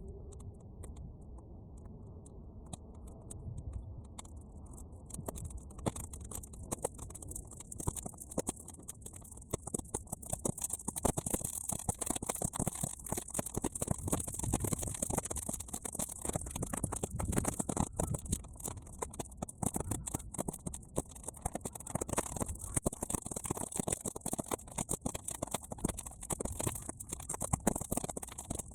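Bonfire of half-dried weeds crackling and popping in quick, dense clicks, which grow busier and hissier about five seconds in, over a low rumble of wind on the microphone.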